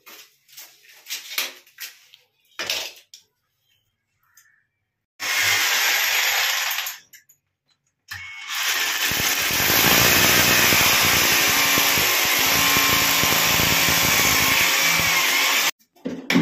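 Corded electric hammer drill boring into a tiled wall for the cistern's mounting holes. A few light taps and scrapes come first, then a short burst of drilling about five seconds in, then a long steady run that cuts off sharply near the end.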